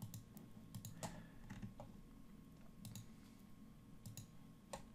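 Faint computer mouse clicks, about ten scattered single and paired clicks, over quiet room tone, as faces are clicked with a paint tool.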